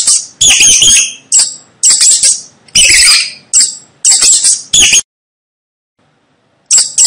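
Mouse squeaking: quick clusters of sharp, high-pitched squeaks, breaking off about five seconds in and starting again near the end.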